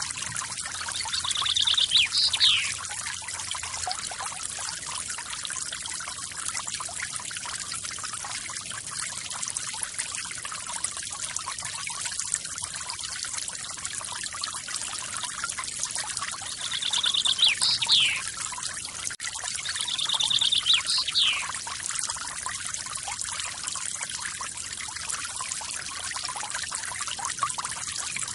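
Waterfall splashing steadily, with a bird calling three times over it: a rapid high trill ending in a quick falling note, about two seconds in and twice more a little past the middle.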